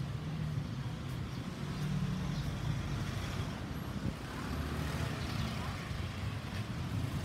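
Street traffic: an SUV and small motor scooters passing slowly, their engines running with a steady low hum over road noise.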